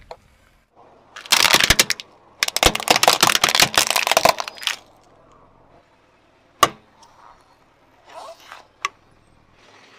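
A car tyre crushing a toy jet plane: a dense run of crunching and cracking for about three seconds. It is followed by a single sharp snap and a few fainter cracks near the end.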